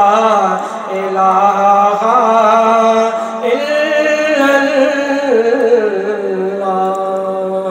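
A man singing a naat solo, drawing out long, wavering melismatic notes, with a new phrase starting about halfway through.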